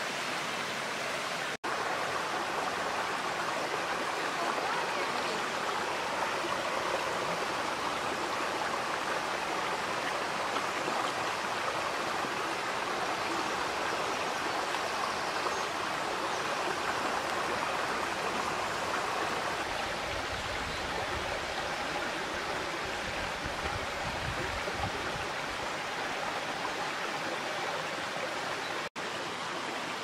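Shallow stream running over rocks: a steady rush and babble of water, with a low rumble for a few seconds in the last third.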